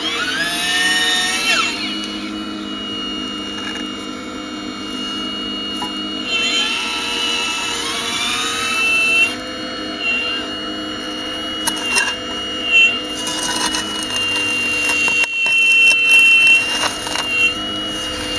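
Radio-controlled Hitachi 870 model excavator working, its motors giving a steady high whine. The whine rises in pitch twice, near the start and about a third of the way in. A few sharp clicks come in the second half.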